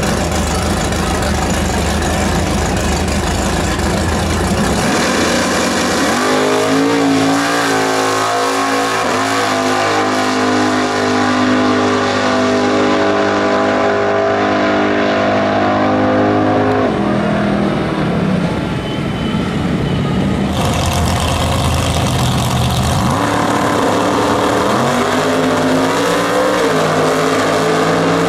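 Drag-racing muscle car, an orange late-1960s Chevelle, rumbling at the starting line, then launching at full throttle and running down the strip, its engine pitch climbing and resetting with each gear change. About 23 seconds in, another pair of drag cars launch at full throttle.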